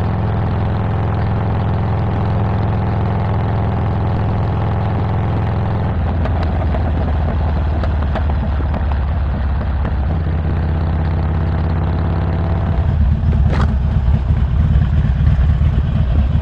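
Harley-Davidson Sportster Iron 1200's Stage 1-tuned air-cooled V-twin idling. Its note shifts about six seconds in and gets louder and rougher a little before the end.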